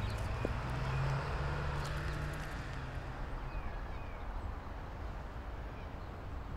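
Outdoor park ambience: a steady low rumble, strongest in the first few seconds, with a few faint bird chirps.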